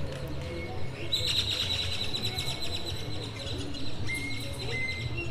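Outdoor wildlife ambience with bird calls. About a second in, a high, rapid pulsing trill starts and fades after about two seconds, followed by a few short whistled notes, over a steady low background hum.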